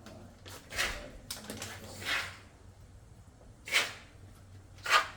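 A handful of short, irregular scuffs and knocks, the loudest two near four and five seconds in, over a faint steady hum.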